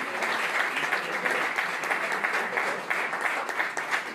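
Audience applauding, the clapping thinning out into scattered claps near the end.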